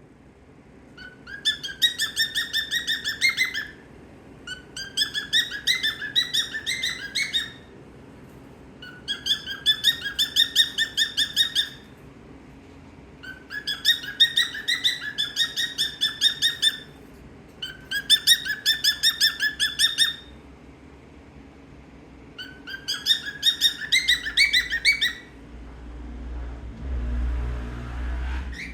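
Small pet parrot calling in six bouts of fast, evenly repeated chirps. Each bout lasts about three seconds, and there are short pauses between them. A low rumble comes in near the end.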